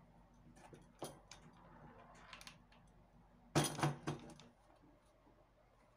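Scattered light clicks and clinks of a plastic bathroom-rack shelf and its metal tube legs being handled during assembly, with a louder cluster of knocks a little past halfway.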